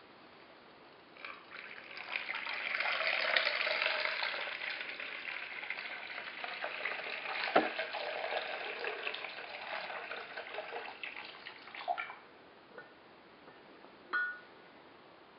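Water pouring into a cast-iron teapot for about ten seconds, then stopping, followed by a few light clinks.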